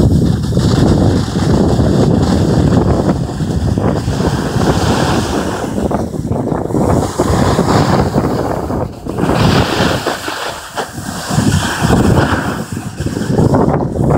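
Wind rushing over the microphone of a camera carried down a ski slope at speed, mixed with the hiss and scrape of a snowboard sliding over packed snow. The noise surges and eases unevenly throughout.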